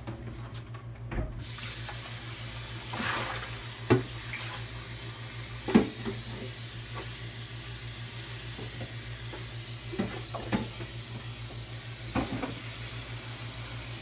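Kitchen tap running hot water, turned on about a second in and then running steadily, with a few knocks of containers being handled.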